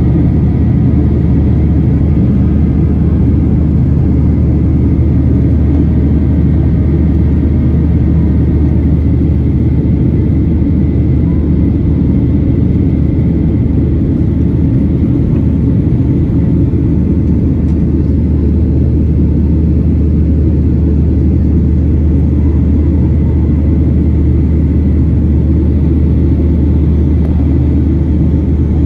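Cabin noise of a Boeing 737-800 climbing out after takeoff, heard from a window seat over the wing: a steady, loud rumble from its CFM56-7B engines and the airflow. Faint steady tones ride on top and fade about nine seconds in.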